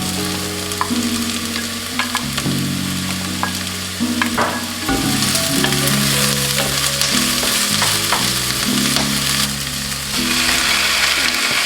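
Onions and peppers frying in olive oil in a pan: a steady sizzle that grows louder about halfway through, with a few short clicks, over soft background music chords.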